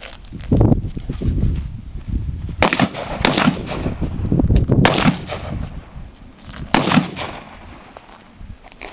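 Four shots from a .38 revolver, unevenly spaced: two close together about three seconds in, one near five seconds, and one near seven.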